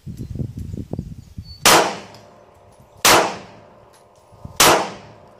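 Three handgun shots fired at a steady pace, about a second and a half apart, each a sharp crack that trails off quickly.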